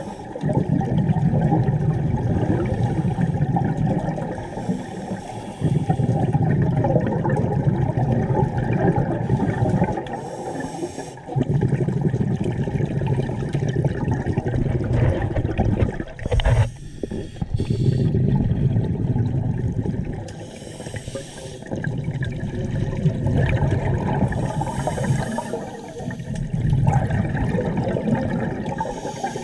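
Scuba regulator breathing underwater: a rumbling rush of exhaled bubbles lasting a few seconds, broken every four to six seconds by a short hissing inhalation through the regulator.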